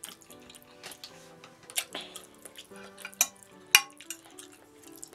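Fork and knife clicking and scraping against a plate while cutting a Salisbury steak, with a sharp click about three and a half seconds in. Soft background music with held notes plays underneath.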